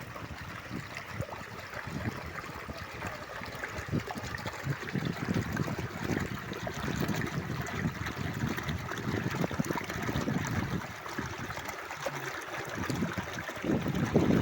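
Stream water running steadily, with irregular low surges and a louder swell near the end.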